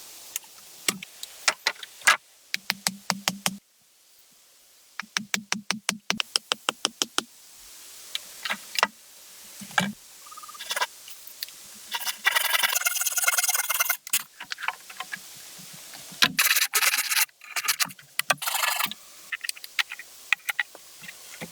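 Sharp knocks, some in quick runs of about six a second, alternating with stretches of rasping scraping.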